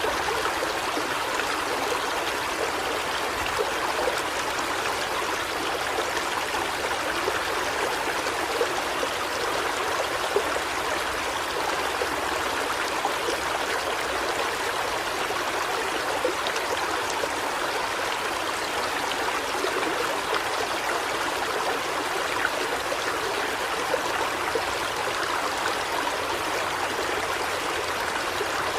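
River water flowing steadily over a rocky bed: a continuous even rush with small splashes scattered through it.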